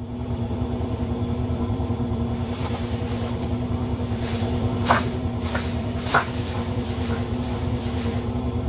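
A steady mechanical hum, like a motor or engine running, with two short sharp clicks about five and six seconds in.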